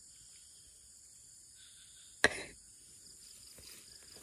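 Insects trilling steadily at a high pitch, with a single sharp knock about two seconds in, the loudest sound.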